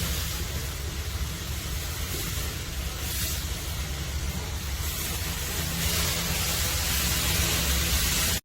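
Steady loud rushing noise with a deep rumble underneath, which cuts off suddenly near the end.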